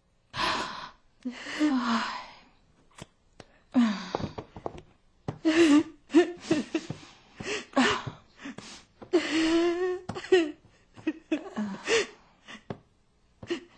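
A woman sobbing: gasping, breathy intakes and broken cries that waver in pitch, coming in uneven fits.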